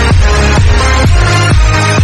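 Electronic dance music with a heavy kick drum about twice a second over deep bass.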